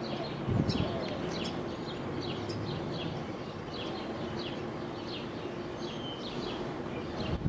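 Small birds chirping over and over: short, high, falling chirps several times a second, over a steady low hum. A gust of wind hits the microphone about half a second in.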